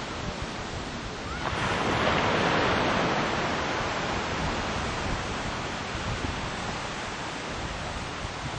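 Ocean surf breaking on a beach: a wave crashes about a second and a half in, swelling into a loud rush of white water that slowly fades back into the steady wash of the surf.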